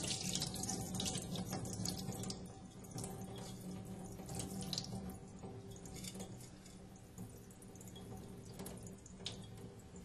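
Rinse water draining from a pot of washed rice, pouring and trickling through the fingers into a stainless steel sink. It is strongest in the first couple of seconds, then thins to scattered drips and small splashes over a faint steady hum.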